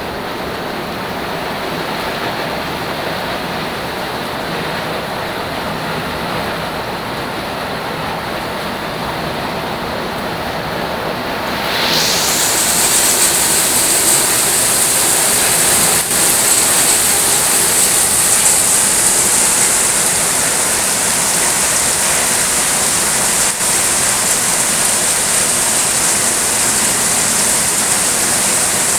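Steady heavy rain falling, turning louder and hissier about twelve seconds in.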